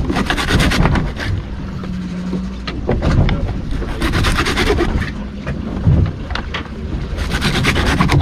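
SORD serrated knife sawing through baitfish in the slots of a plastic bucket bait cutter. It comes in three short bouts of quick rasping strokes, a few seconds apart, over wind noise and a low steady hum.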